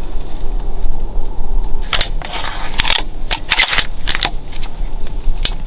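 Wind rumbling on the microphone, with a run of sharp clicks and rattles from about two seconds in until near the end as a scoped rifle on its rest is handled.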